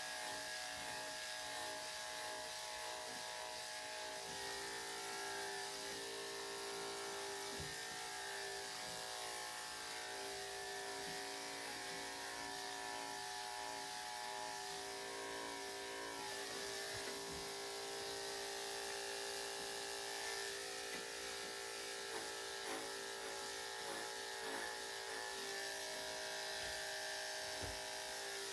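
Electric dog clippers fitted with a #3 3/4 blade, running with a steady hum while clipping a Yorkshire Terrier's coat. The level wavers briefly several times in the last third.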